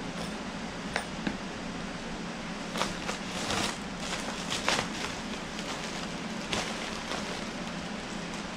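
Plastic bag crinkling as it is handled, in several quick bursts from about three to five seconds in, after a couple of sharp clicks about a second in. A fan runs steadily underneath.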